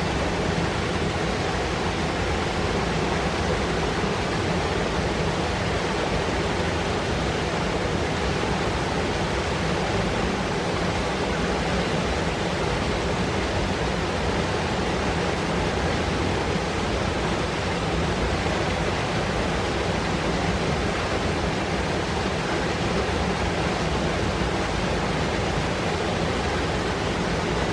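Fast mountain river rushing and foaming over rocks: a steady, dense rush of white water.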